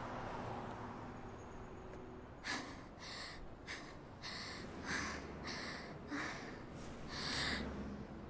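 A girl's voice taking quick, heavy, gasping breaths while crying, about nine ragged sobbing breaths in a row starting a couple of seconds in.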